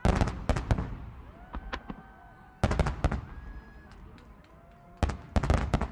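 Fireworks exploding in three clusters of sharp cracks and bangs, one at the start, one near the middle and one near the end. Faint sliding tones fall between the bursts.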